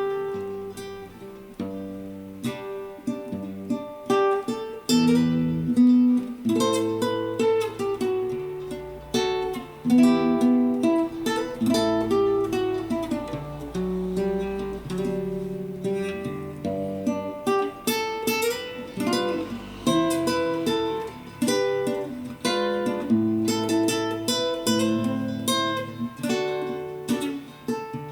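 Acoustic guitar playing a melody in a run of plucked notes mixed with strummed chords.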